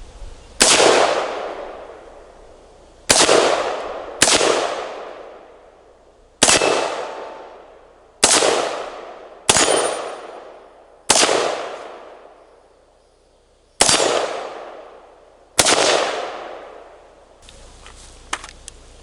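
Core AR-15 rifle in 5.56 firing nine single semi-automatic shots at an uneven pace, each sharp crack trailing off in a long echo.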